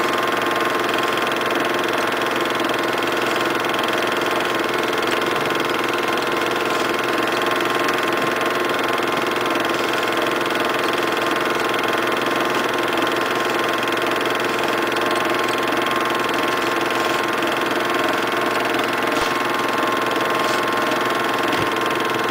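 Movie film projector running steadily: an unchanging mechanical hum of motor and film transport with a thin whine above it.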